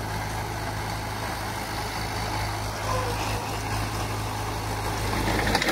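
Tractor engine running steadily as it pulls a rotavator through dry soil, a continuous low drone.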